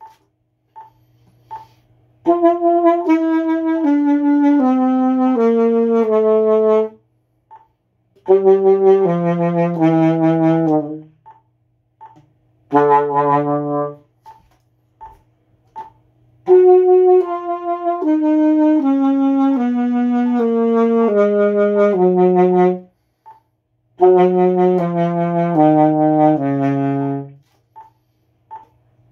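Alto saxophone playing a vibrato exercise: five phrases of held notes, each stepping down like a scale, with breaths between phrases. Faint metronome beeps at 80 bpm can be heard in the pauses.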